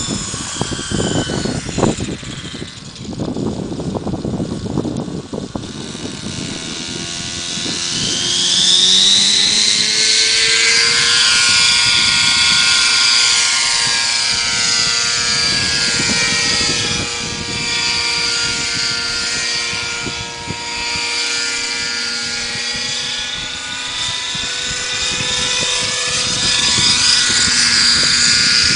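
Nitro (glow-fuel) engine of a radio-controlled helicopter running. Its pitch climbs steeply about a quarter of the way in, then holds a high, steady whine that wavers a little as the helicopter flies.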